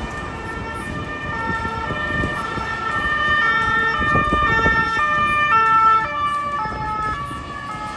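Emergency vehicle sirens sounding in alternating tones, more than one at once, over street traffic noise. They grow louder up to about six seconds in, then fade.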